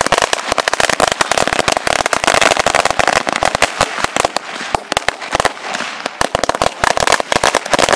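A 1000-wala string of firecrackers going off in an unbroken rapid chain of loud bangs, many a second.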